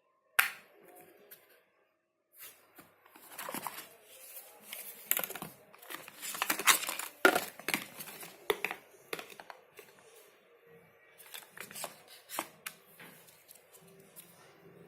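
Chromecast packaging being handled and opened by hand. A sharp click comes about half a second in, then a few seconds of dense rustling and clicking, thinning to scattered clicks near the end.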